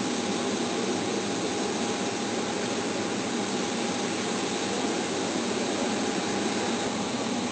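Steady rushing noise of a parked jet airliner running on the apron, with a constant high whine through it.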